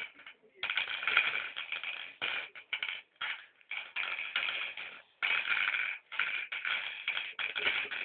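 Mangala stones clicking and clattering as they are dropped one by one into the pits of the board, in quick irregular runs with short pauses between them.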